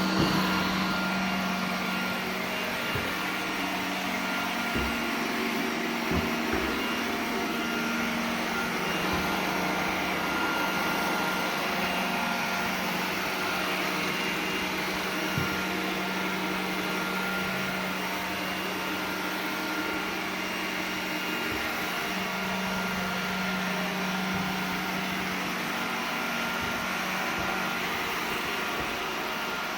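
iRobot Roomba 980 robot vacuum running: a steady motor hum over the rush of its suction, with a few brief light knocks here and there.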